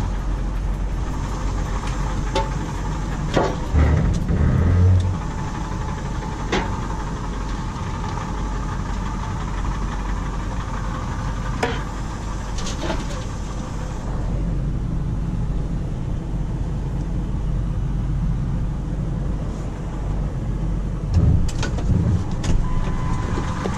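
Ford Super Duty pickup's engine running at low speed as the truck rolls down steel loading ramps off a trailer, under a steady low rumble. Scattered sharp clicks and clunks come from the truck on the ramps.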